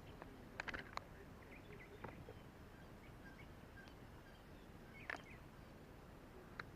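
Quiet outdoor ambience with a few faint clicks and knocks, and faint short bird chirps scattered throughout.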